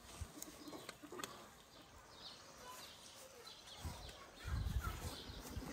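Birds calling faintly, with a few faint clicks and a low rumble starting about four and a half seconds in.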